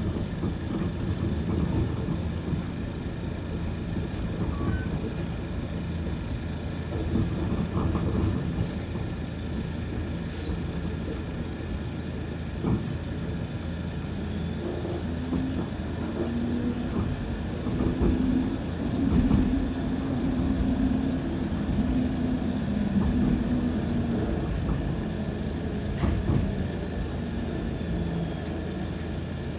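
Toronto streetcar, a Bombardier Flexity Outlook, running along the track, heard from inside the car: a steady low rumble of steel wheels on rails with a few sharp knocks. A low electric motor whine comes in a little past halfway and fades shortly before the end.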